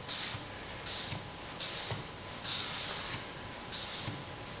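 A cotton pad wet with lacquer thinner rubbed over a laser-printed paper template on a wooden board. Soft swishing wipes with light pressure, about one a second, one of them longer in the middle. This is the solvent transfer of the printer toner onto the wood.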